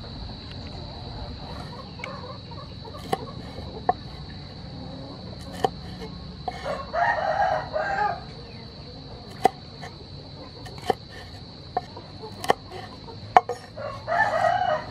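A rooster crows twice, once about six and a half seconds in and again near the end. Between the crows, a kitchen knife strikes a wooden cutting board now and then as small red chilies are sliced.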